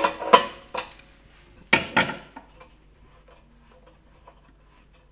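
Adjustable spanner clinking against the brass non-return valve end cap on an air compressor tank as the cap is loosened: five sharp metallic clicks in the first two seconds, then faint ticks as the cap is turned off by hand.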